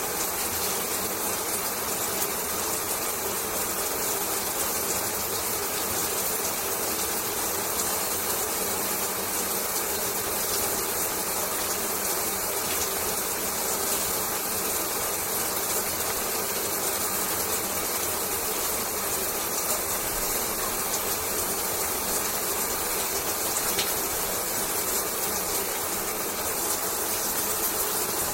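Shower running steadily: an even, unbroken hiss of falling water spray.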